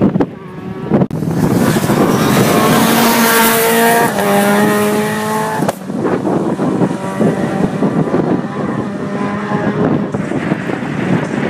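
Rally car engine accelerating hard through the gears, its pitch climbing and dropping back at each upshift. About six seconds in it cuts off suddenly as the driver lifts off, then it pulls up through the gears again, a little quieter.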